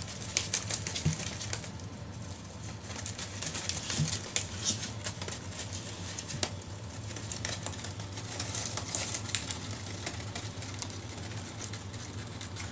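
Rabbits chewing and tugging at a cardboard tube toy wrapped in brown paper: irregular crinkling and rustling of paper and cardboard, with quick small gnawing clicks throughout.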